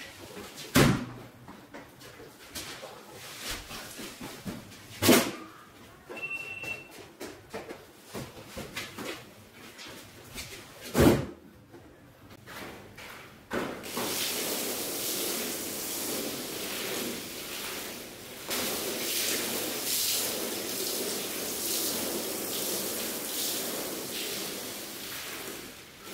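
Rug cleaning: three sharp knocks spread through the first half, then from about halfway a steady, rough swishing noise of work on the rug that runs on with a short dip.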